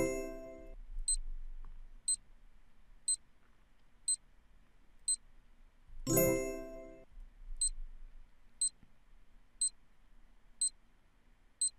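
Quiz countdown-timer sound effect: five short, high ticks about a second apart, then a bright ringing chime as the answer is revealed. The chime sounds at the start and again about six seconds in, and a second run of ticks follows it.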